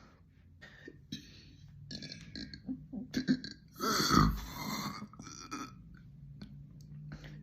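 A young woman burping: one loud belch about four seconds in, after a few shorter, quieter sounds.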